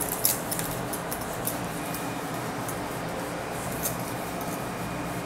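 Whiteboard being wiped with a handheld duster: soft rubbing, with scattered light clicks and clinks, most of them near the start.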